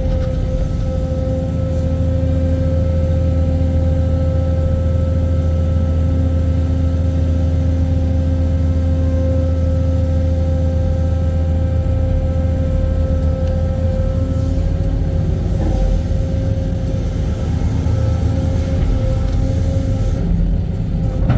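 Heavy excavator's diesel engine running steadily under working load, a strong low drone with a constant high whine over it.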